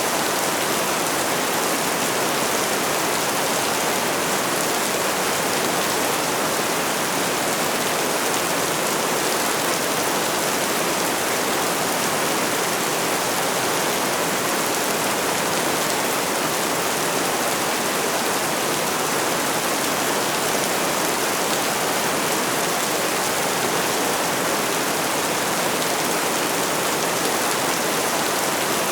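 Steady rainfall: an even, unbroken hiss with no pauses or separate loud drops.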